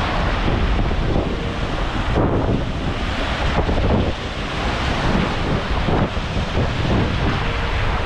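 Wind buffeting the microphone in a continuous low rumble, over the rushing noise of surf.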